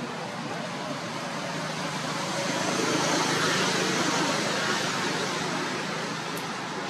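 A vehicle passing on a road: a broad rushing noise that swells to its loudest about halfway through and then fades away.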